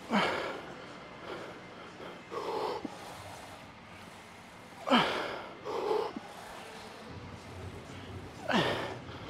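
A weightlifter's hard, forceful breathing while straining through heavy hack squat reps on a set taken to failure: three sharp exhales about four seconds apart, each followed a moment later by a shorter breath.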